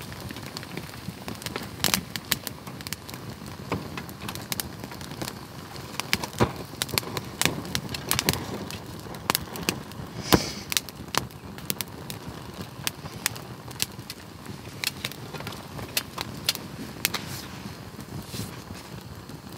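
Small wood fire in a stainless steel fire pit crackling and popping: irregular sharp pops, one louder about halfway through, over a steady low hiss. The wood is wet.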